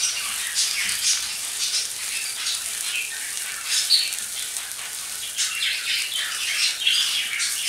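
Slotted wooden spatula stirring and scraping boiled potato chunks in a nonstick frying pan, over a steady sizzle of hot oil, with irregular scrapes throughout.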